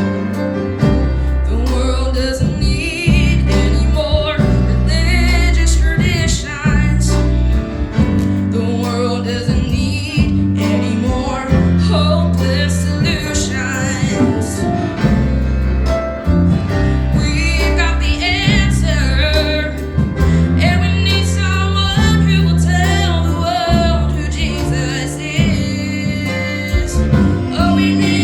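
Live gospel singing with vibrato over instrumental backing, with sustained bass notes underneath and strummed string chords.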